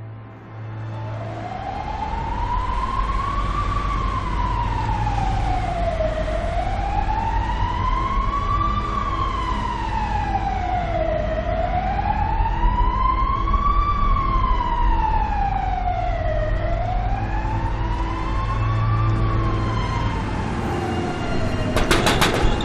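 Emergency-vehicle siren wailing slowly, its pitch rising and falling about every five seconds over a low steady rumble, with a brief clatter near the end.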